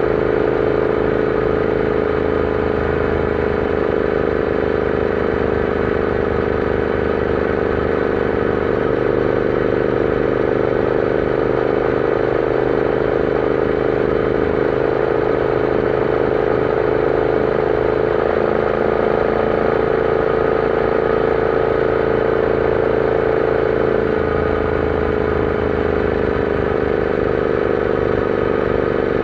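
Royal Enfield Interceptor 650's parallel-twin engine running steadily while riding, its note holding nearly constant with a slight rise and fall in pitch.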